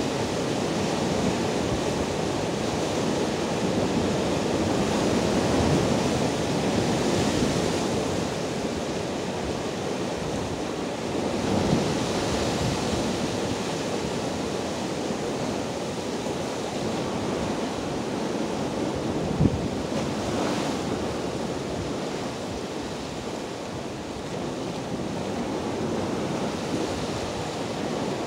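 Rough sea surf breaking and washing over coastal rocks: a continuous rushing noise that swells and eases with the waves. About two-thirds of the way in there is one brief sharp thump.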